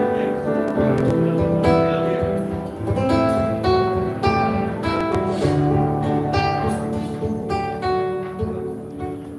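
Instrumental worship music with a guitar playing a steady flow of plucked and strummed notes over held low notes, growing somewhat quieter near the end.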